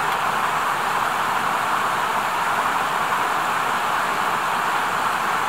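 Rushing mountain stream: a steady, even rush of running water.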